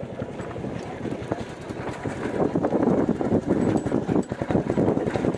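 Royal Enfield Bullet 350's single-cylinder engine running in a fast, even pulse while riding a rough dirt track, with rattles and wind on the microphone. It gets louder about two seconds in.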